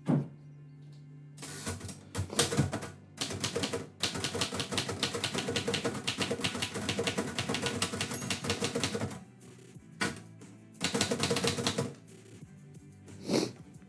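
Typewriter keys clacking in fast runs of typing, broken by short pauses, with a heavier knock at the start and another near the end.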